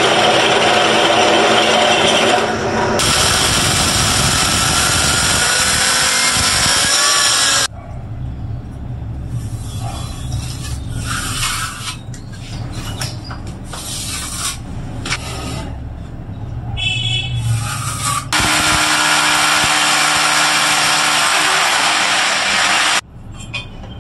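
A power tool running in two long loud spells, with quieter stretches of handling knocks and a low hum between them.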